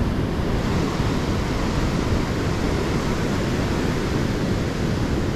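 Steady rushing noise of ocean surf, with wind rumbling on the microphone.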